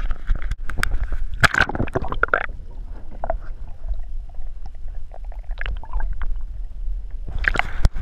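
Pond water splashing and gurgling as a largemouth bass is lowered by hand into the shallows for release, heard muffled and rumbling with the microphone under the surface. A quick run of splashes at the start, a quieter underwater rumble in the middle, and another burst of splashing near the end as it breaks the surface.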